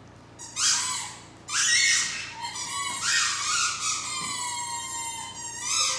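A squeaky dog toy squeals sharply twice, then a 10-month-old Great Dane puppy howls at it in one long, high wail that slowly falls in pitch.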